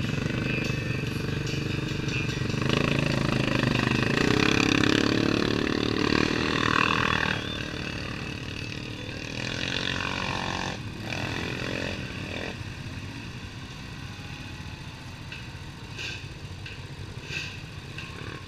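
ATV engine running on a dirt trail, revving up for a few seconds, then easing back to a lower, steadier run from about seven seconds in. Other off-road vehicles' engines run alongside, with a few light clicks near the end.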